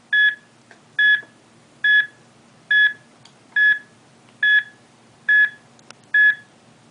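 Short electronic beeps of one steady pitch, eight of them at an even pace of a little under one a second.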